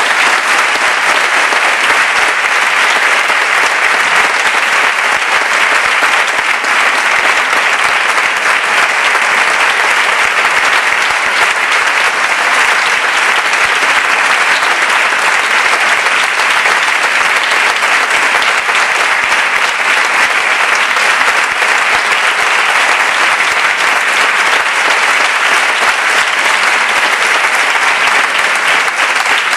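Audience applauding: dense, steady clapping from many hands, held at an even loudness.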